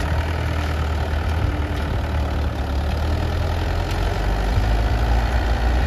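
Farm tractor's diesel engine running steadily and loudly as it pulls a seed drill across ploughed soil, a deep even rumble with no change in revs.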